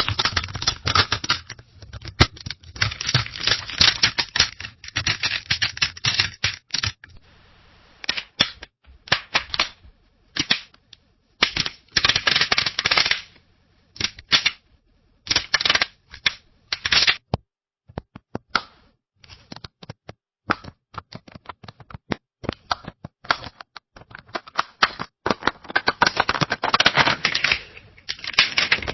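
Flashbulbs popping in quick succession: dense runs of sharp clicks and pops in several bursts, with short lulls between them.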